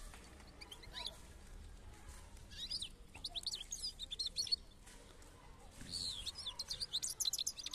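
European goldfinch singing: rapid runs of high, twittering, sweeping notes. There is a short phrase about a second in, a longer burst around three to four seconds in, and another run near the end.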